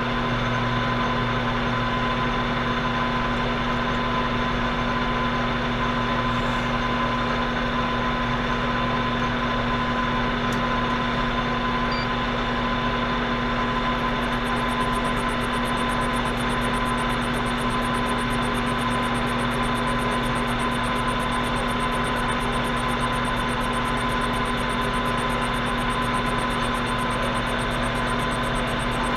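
Atlas metal shaper running steadily on a final cutting pass on a Delrin part, its motor giving an even hum.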